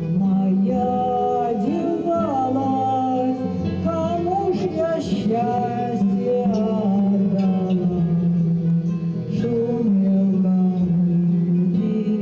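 A song: a voice singing a slow melody over steady accompaniment, with acoustic guitar.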